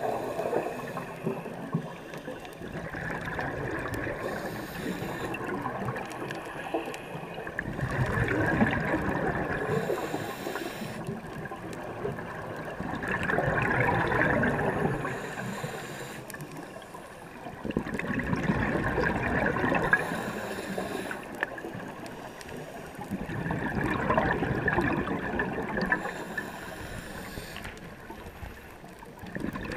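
Scuba regulator breathing heard underwater: a diver's exhaled bubbles swell and fade in a slow rhythm, about one breath every five to six seconds.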